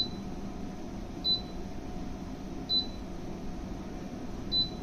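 MasterChef 6L air fryer's control panel beeping as the function button is pressed to step through the cooking menus. Four short, high beeps, each starting with a click, come about a second and a half apart.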